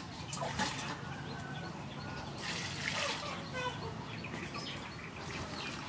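Water splashing as a metal bowl is dipped into a large clay water jar and lifted out full, with a short splash about halfway through. Birds chirp around it.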